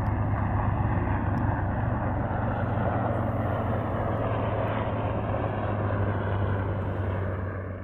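Low-flying military helicopters passing overhead: a steady rotor and engine drone with a strong low hum, easing off near the end.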